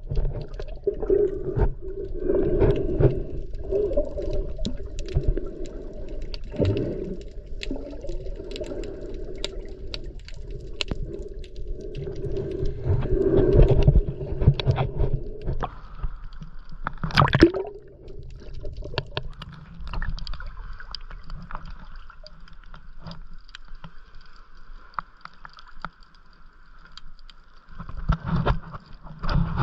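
Underwater sound heard while snorkelling: muffled water movement and gurgling, with many scattered sharp clicks. A steady faint hum comes in about halfway through.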